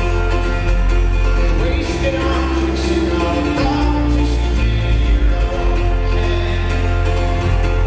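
Live folk-rock band music, loud and steady, with singing over an acoustic guitar and a heavy bass.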